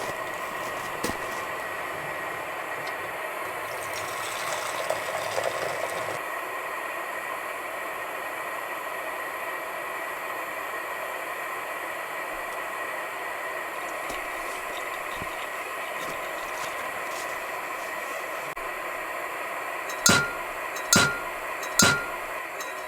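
Four sharp clinks of camp cookware, each ringing briefly at one pitch, near the end over a steady hiss.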